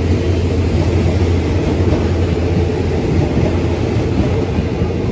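Thai passenger train carriages running past close by: a steady, loud noise of wheels on the rails, with a low hum that fades about two seconds in.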